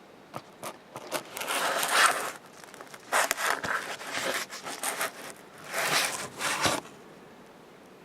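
Leopard gecko chewing a dead cricket: a few sharp clicks, then three bursts of crunching and crackling.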